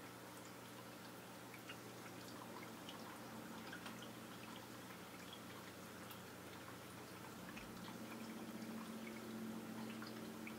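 Faint aquarium water sounds: a steady low hum with a soft trickle and many small scattered drips. The hum grows a little louder near the end.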